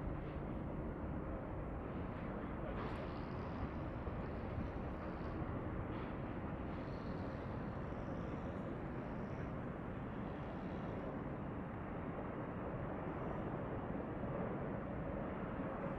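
Steady, even outdoor rumble of distant jet engines and airport activity, with no distinct events.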